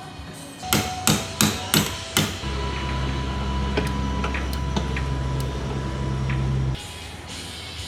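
Five sharp hammer strikes in quick succession, then a steady low mechanical hum with a faint high tone that runs for about four seconds and cuts off suddenly.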